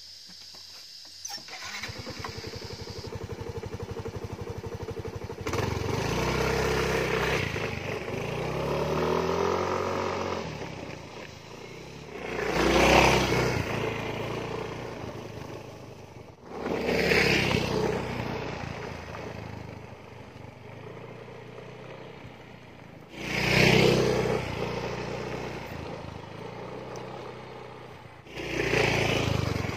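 Small motor scooter engine started, running with an even pulse, then ridden off along a dirt track; the engine note rises as it pulls away and swells up and falls off four times as the scooter passes close.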